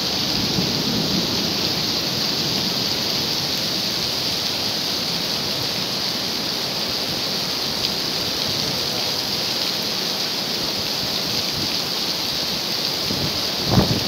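Heavy rain falling steadily onto wet open pavement, an even hiss. Near the end, a brief gust of wind buffets the microphone.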